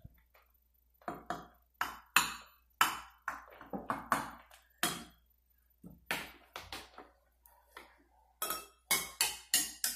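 Homemade water xylophone: six clear cups filled with different amounts of coloured water struck one after another with a mallet, each giving a short pinging ring at its own pitch set by the water level. Many quick taps come in several runs with short pauses between them.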